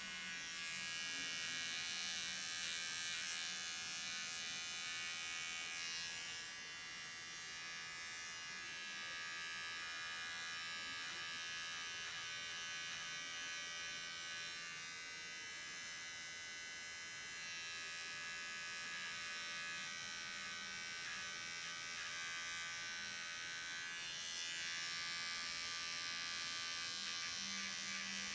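Electric hair clippers running with a steady buzz as they cut hair up the back of the neck, the level dipping a little now and then as they move.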